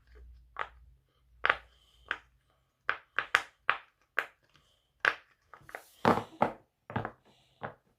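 Silicone circle pop-it fidget toy having its bubbles pressed one after another: a run of about fifteen short popping clicks at an uneven pace, roughly two a second.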